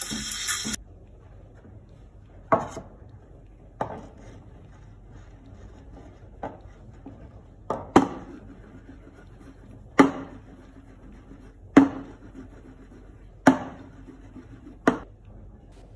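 A Solis Grand Gusto espresso machine's steam wand hissing in the milk pitcher cuts off within the first second. Then a stainless steel milk pitcher is knocked on the stone countertop about nine times, a second or two apart, each a sharp knock with a short ring, settling the freshly steamed milk foam.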